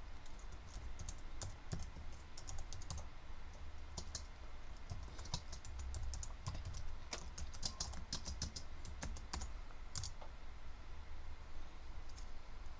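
Typing on a computer keyboard: irregular keystrokes that come thickest in the middle, with one louder stroke about ten seconds in, then only a few near the end. A low steady hum runs underneath.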